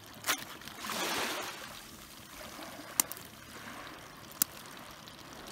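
Blue crabs being handled out of a mesh landing net and into a plastic bucket: three sharp clicks of crab shells knocking, and a rustle about a second in, over a steady faint water sound.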